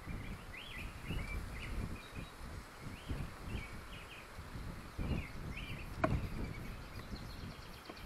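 Wild birds chirping: a string of short, quick whistled notes over an uneven low rumble. A sharp click comes about six seconds in.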